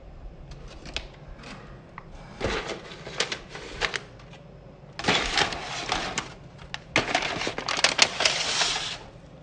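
Thin plastic crinkling and crackling in three bouts, each one to two seconds long, most likely the small tied plastic bag of chutney being handled.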